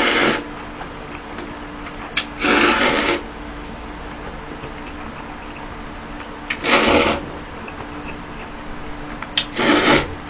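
Person slurping long cold noodles: four loud slurps a few seconds apart, with a faint steady hum underneath.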